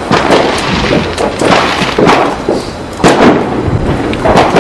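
Fireworks banging and crackling in quick succession, roughly two sharp reports a second, over a steady low rumble.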